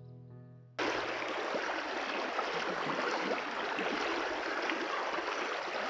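A stream's running water, a steady rushing babble, coming in suddenly about a second in as piano music cuts off.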